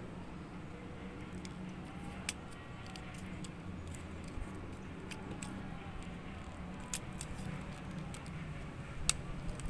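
Scattered small sharp clicks and taps of a die-cast toy truck's plastic cargo-box side panel being handled and fitted back on, the loudest near the end, over a steady low rumble of wind on the microphone.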